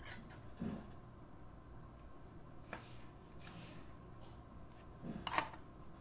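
Trading cards in rigid plastic toploaders being picked up and handled on a table: a soft knock under a second in, a faint click near the middle, and a brief louder plastic scrape a little past five seconds in.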